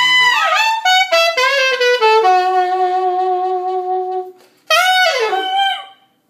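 Alto saxophone playing a blues phrase, then a long held low note, a short break, and a final phrase that slides down in pitch before stopping near the end.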